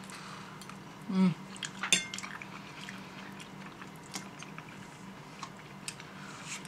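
Forks clinking and scraping on ceramic plates and the quiet mouth sounds of people eating pasta, with a brief hummed "mm" about a second in.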